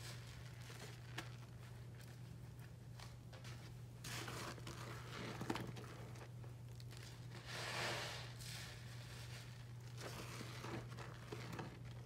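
A crumbly pink block being squeezed and crushed by hand in a sink of foamy water: soft wet crunching and small clicks, with two swells of hissing, about four seconds in and again near eight seconds.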